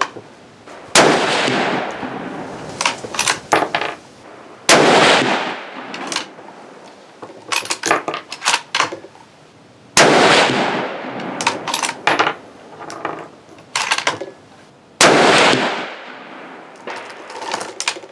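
A 6.5 Creedmoor Savage Axis bolt-action rifle fired four times, a few seconds apart, each shot trailing off in a long echo. Between shots the bolt is worked, a quick run of metallic clicks and clacks.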